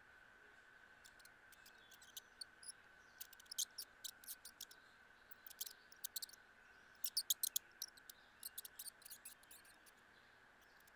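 Mouse making clusters of rapid, short, high-pitched ticks and squeaks, loudest around the middle and again about seven seconds in. A faint steady high hum runs underneath.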